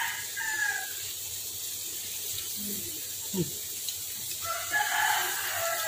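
A rooster crowing twice: one long crow that ends about a second in, and another that starts about four and a half seconds in.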